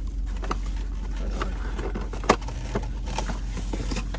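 A few light clicks and knocks, the sharpest about two seconds in, over a steady low hum.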